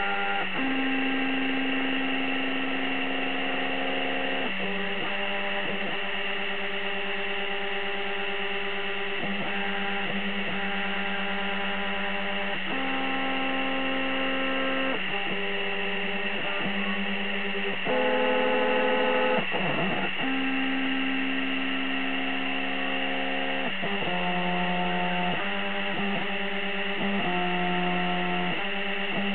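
Stepper motors of a small DIY laser engraver whining as they drive the laser head, each move held at a steady pitch that jumps to a new note every second or few, with one quick swoop down and back up partway through, over a steady hum.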